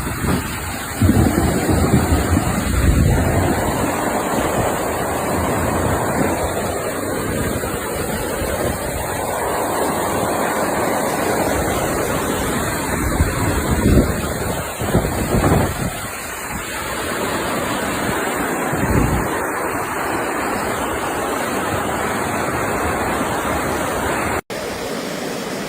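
Storm noise: a steady rush of wind and water, swelling twice, with gusts buffeting the microphone in low thumps.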